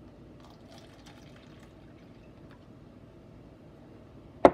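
Water poured from a glass measuring cup into a plastic cup, a faint trickle with a few drips. Near the end come two sharp knocks close to the microphone as the cup is handled.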